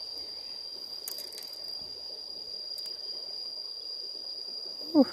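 A steady, high-pitched insect trill, one unbroken tone, over faint background hiss, with a few faint clicks.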